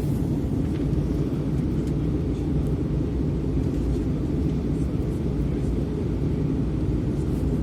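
Steady low rumble of a passenger airliner's engines and airflow heard inside the cabin, even in level with no rise or fall.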